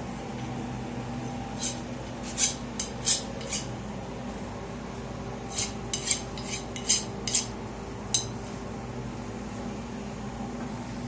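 Light metal-on-metal clinks in two quick clusters of about five or six, over a steady low hum of shop equipment.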